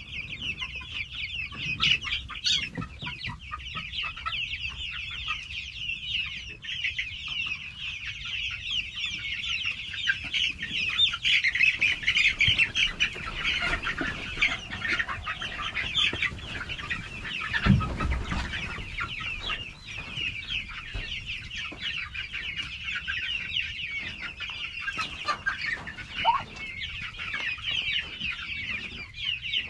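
A crowd of young chicks peeping continuously in rapid, high-pitched chirps. A single low thump comes a little past halfway.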